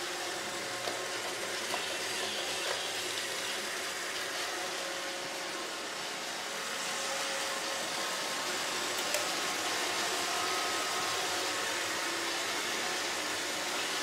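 iRobot Roomba 650 robot vacuum running across a hard tile floor: a steady whir of its vacuum motor and brushes, with a few light clicks.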